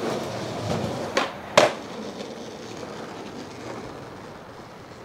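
Skateboard wheels rolling over concrete, with the tail snapping for an ollie about a second in and a loud clack of the board landing half a second later at the foot of a three-stair. The wheels then roll out across asphalt, fading.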